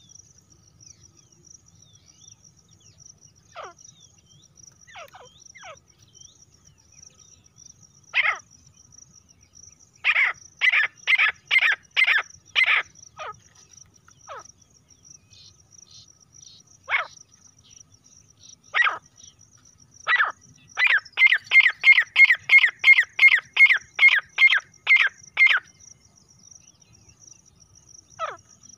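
Female grey francolin calling: a few sharp single calls, then a run of about six, and later a fast series of some fifteen calls at about three a second.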